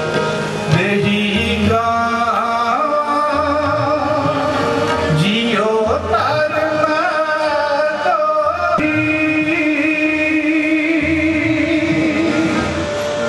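A singing voice with instrumental accompaniment: a wavering melody over long held notes, with a low drum beat underneath. It has the sound of devotional singing.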